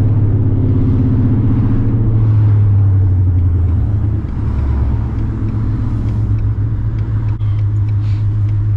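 2021 Mustang GT's 5.0 Coyote V8 with catless long-tube headers, heard from inside the car while driving: a loud, steady low exhaust drone. It eases off a little about four seconds in, then holds steady.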